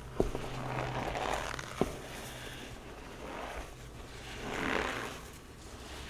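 Hands kneading and crushing a pile of powdery gym chalk mixed with cornstarch: soft crunching swells every couple of seconds, with two sharp clicks in the first two seconds.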